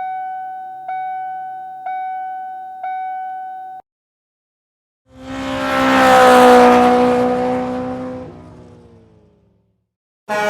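Four evenly spaced ringing tone strikes about a second apart, then a loud vehicle horn that swells and fades over about four seconds as it passes, its pitch dropping near the end.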